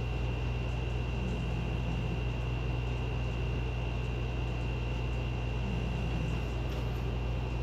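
Steady low hum with a thin, high, steady whine over it: the background noise of a home recording, with nothing else happening.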